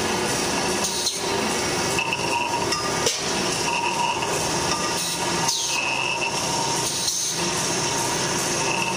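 Automatic circular saw cutting steel tube: a steady mechanical din with metallic clanks and knocks of the tube being fed and clamped, and short ringing tones that come back every two seconds or so.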